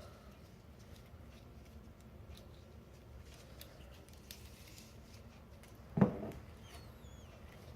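Faint clicks and small handling noises of tools and connector parts being set up for soldering, with one short, louder knock about six seconds in.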